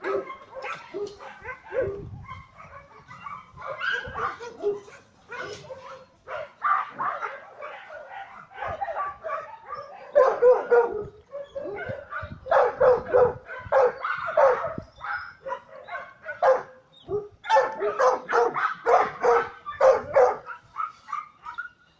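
Dogs barking and yipping in short, repeated bursts, louder and more frequent in the second half.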